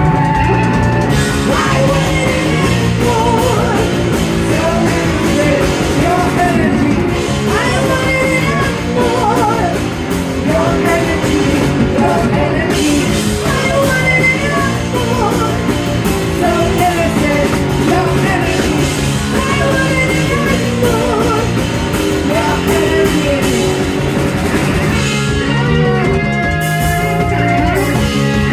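Live rock band playing: electric guitars, bass guitar and a drum kit, with a woman singing into a microphone.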